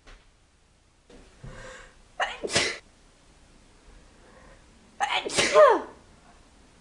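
A person sneezing twice, about three seconds apart, with a drawn-in breath before the first. The second sneeze is the louder, ending in a voiced cry that falls in pitch.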